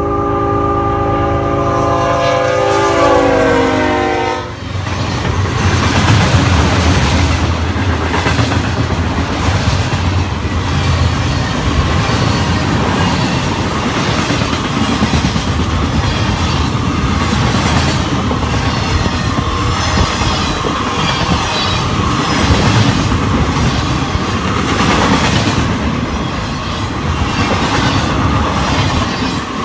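A locomotive's multi-note air horn sounds, its chord sliding down in pitch as it passes and cutting off about four seconds in. Then a loaded freight train rolls past loudly, its wheels clacking rhythmically over the rail joints.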